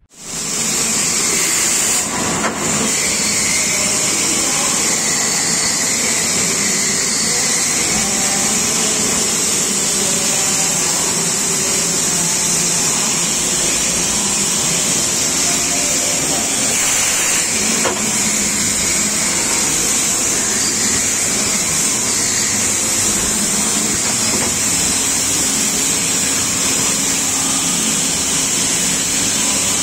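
Deckel Maho DMG 50Evo five-axis machining center running: a loud, steady machine hiss and whir, strongest in a high hiss.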